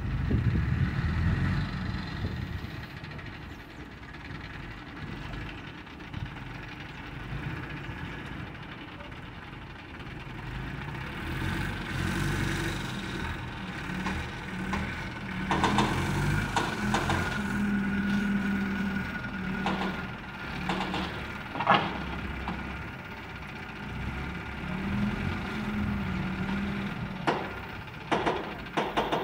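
Diesel engine of an Escorts 12-ton Hydra pick-and-carry crane running under load as it lifts concrete blocks onto a lorry, its level swelling and easing with the work. A few sharp knocks come through the middle and near the end.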